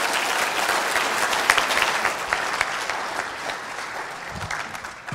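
Audience applauding, dying down over the last couple of seconds.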